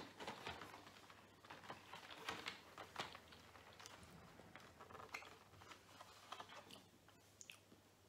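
Faint, irregular small clicks and light taps of fingers handling a cardboard advent calendar box.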